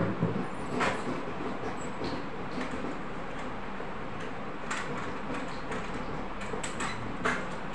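Curtain being taken down from its rod: the rings scrape and clack along the rod a few times over a steady background noise.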